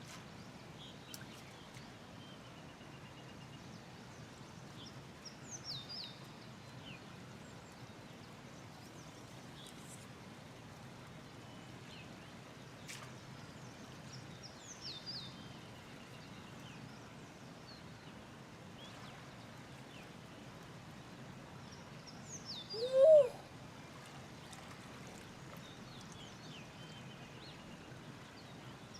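Small birds calling from time to time, high falling phrases every several seconds, over a steady outdoor background hiss. About three-quarters of the way through comes one short, loud cry that rises and falls in pitch.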